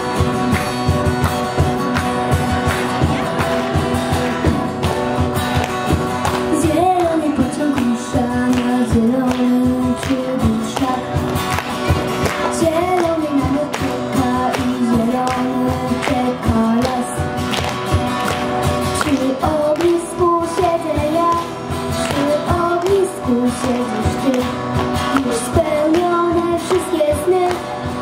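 Acoustic guitar strumming with a cajon beat, and a young girl singing the melody over it.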